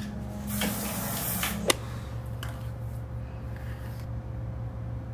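Aerosol hairspray hissing in short bursts for the first couple of seconds, ending with a sharp click, then a steady low hum.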